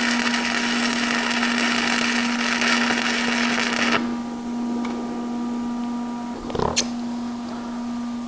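Stick-welding arc crackling and hissing steadily: a 1/8 inch 7018 electrode burning at about 105 amps, DC electrode positive, on an Everlast MTS 210 inverter welder, dragged along a fillet weld. The arc breaks off about four seconds in, leaving a steady hum and a couple of light clicks.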